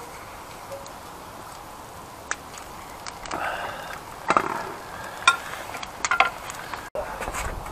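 Wooden spatula scraping and tapping in a small cast iron frying pan as an egg fries, with a few sharp knocks and a scraping stretch in the middle. The sound cuts off abruptly near the end.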